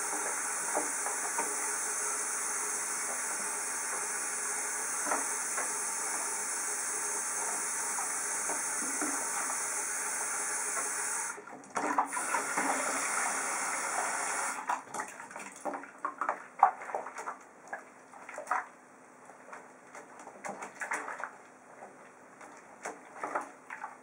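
Bathroom sink faucet running steadily into a plastic tub of water, turned off about halfway through. Then irregular splashing and sloshing as hands wash a pigeon in the soapy water.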